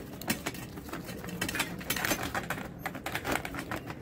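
Fingers patting and pressing oiled dough flat in a steel plate: quick, irregular light taps and clicks.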